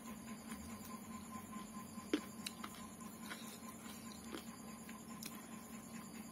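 Quiet eating by hand: chewing and fingers working rice and curry on a plate, heard as scattered small clicks, with one sharper click about two seconds in. A steady faint hum runs underneath.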